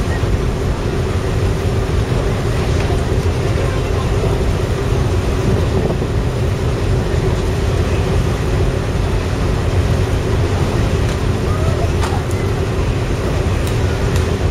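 A ferry's machinery running steadily: a low rumble with a constant hum.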